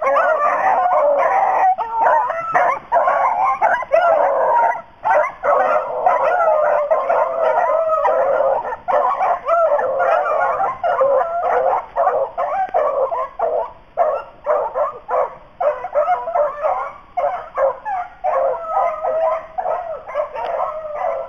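A pack of rabbit hounds baying together on a rabbit's trail, several voices overlapping almost without pause.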